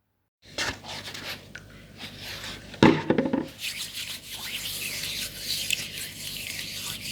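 Blocks of gym chalk being crushed and rubbed by hand: gritty rubbing with scattered crunches, a loud burst of crunching about three seconds in, then steadier dusty scraping.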